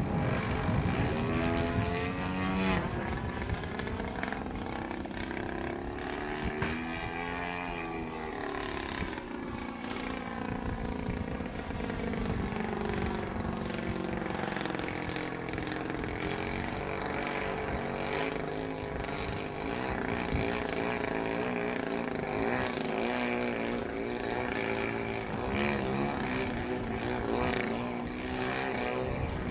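Engine and propeller of a radio-controlled model Yak aerobatic plane in flight. The note rises and falls in pitch in long sweeps as it manoeuvres overhead.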